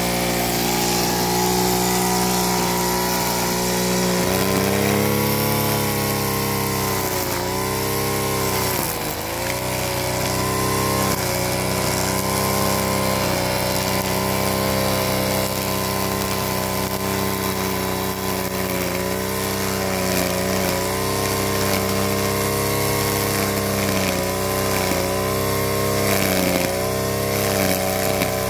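Brush cutter's small engine running hard, throttled up about four seconds in, its pitch sagging and recovering several times as the blade cuts through grass.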